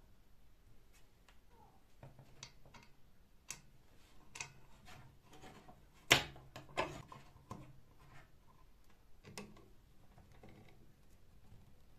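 Light clicks and knocks of small metal bicycle-pump parts being handled and fitted together on a wooden table, with one sharper knock about six seconds in.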